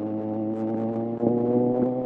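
Kawasaki Z1000 inline-four engine running at a steady speed, a steady droning note with an even stack of harmonics, slightly louder from about a second in.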